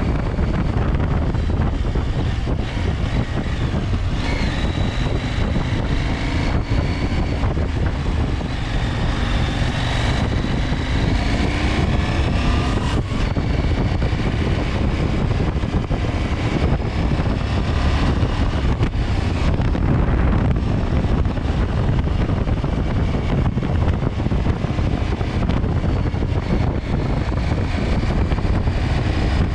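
KTM 890 Adventure's parallel-twin engine running under loud, steady wind buffeting on the microphone while riding; the engine pitch rises and falls several times in the first half.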